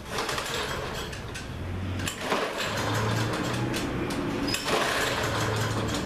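Lawn-Boy push mower's small engine cranked with the recoil starter cord, about three long pulls, whirring and turning over without firing. It is a no-start, the carburetor probably gummed up and not passing fuel.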